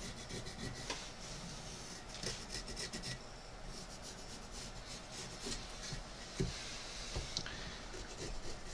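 Pencil scratching on a wooden block in short runs of strokes, marking out the outline of a spoon before carving.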